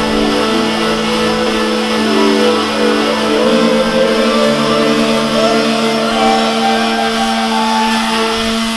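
Background music with plucked guitar: sustained notes that shift every second or two at an even loudness.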